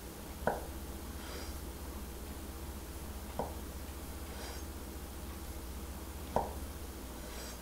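Chef's knife slicing through soft peeled avocado, the blade knocking on a wooden cutting board three times, about three seconds apart.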